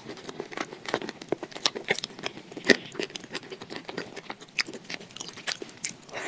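Close-miked chewing of a mouthful of thick wet paste: irregular wet smacks and sharp mouth clicks, with a bite into a fresh chunk near the end.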